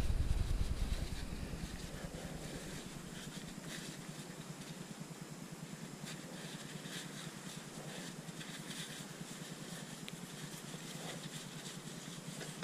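Faint rustling and rubbing of a paper shop towel wiping out the oil filter cavity of a quad's engine, over a steady low hiss. A low rumble fades out in the first second or two.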